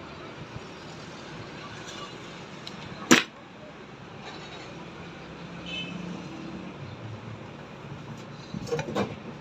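Hand-work noises on wire and a switch: one sharp snap about three seconds in, then a few lighter clicks near the end, over a low steady hiss.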